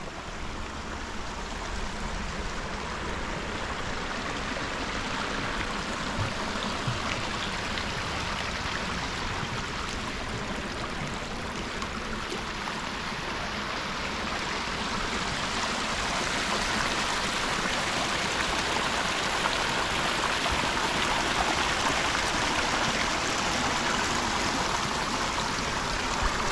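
Creek water flowing and rushing steadily, growing louder about halfway through.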